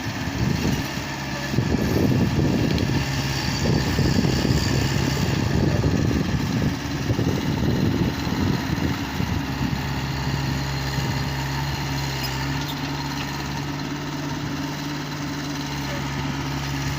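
Diesel engine of a heavy earthmoving machine running. For the first half it is rough and uneven, as when working under load, and later it settles to a steadier note.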